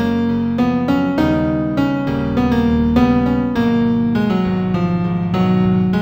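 Instrumental new-age piano music in F major: a steady stream of melody notes over sustained low chords.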